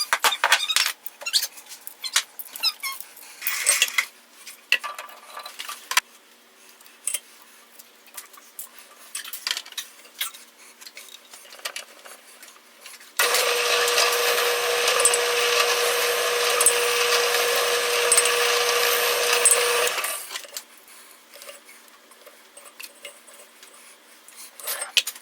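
Clicks and knocks of wood pieces and tools being handled, then a woodworking power tool switched on and running steadily with a held whine for about seven seconds before it shuts off.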